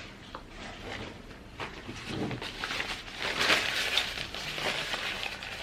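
Close-miked eating sounds of lobster meat: scattered soft clicks and wet mouth noises, thickening into a stretch of chewing about halfway through.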